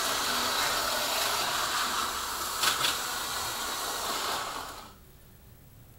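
HO-scale slot car running laps on the plastic track, a steady whirring hiss from its small electric motor, with a brief click partway through. It runs down and stops about three quarters of the way in.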